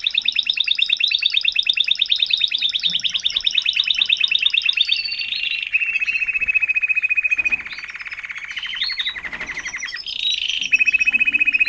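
Timbrado español canary singing a continuous song of rapid trills that switch to a different roll every few seconds, with a held whistled note a little past halfway and again near the end.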